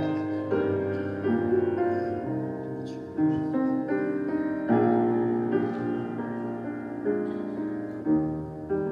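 Piano music: a slow melody over chords, each note striking and then fading.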